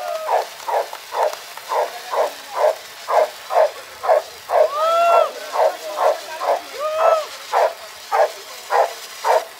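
A small dog barking rapidly and steadily, about two to three sharp barks a second, with a few rising-and-falling whining yelps among the barks.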